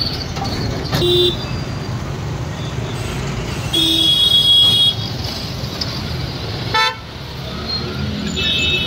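Busy street traffic with vehicle horns honking: a short toot about a second in and a longer, louder blast about four seconds in, over a steady rumble of engines and crowd.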